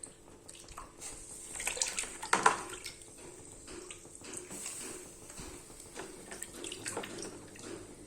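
Water splashing and sloshing in a cooking pot, with scattered light knocks and clinks; the loudest knock comes about two and a half seconds in.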